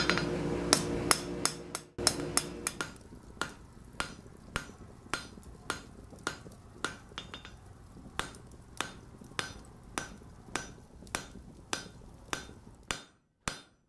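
Hammer blows ringing on an anvil in an even rhythm of nearly two strikes a second. Under the first few strikes runs the steady hum of a forge, which cuts off about two seconds in.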